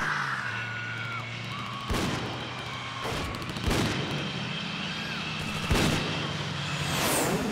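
Action-film soundtrack: three loud bangs like gunfire about two seconds apart, over a low steady drone, with a high falling whoosh near the end.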